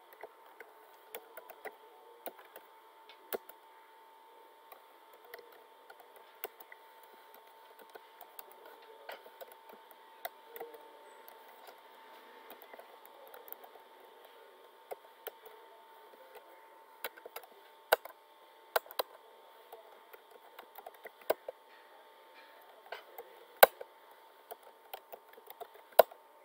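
Computer keyboard being typed on in irregular bursts of key clicks, with several sharper, louder keystrokes in the second half, over a faint steady hum.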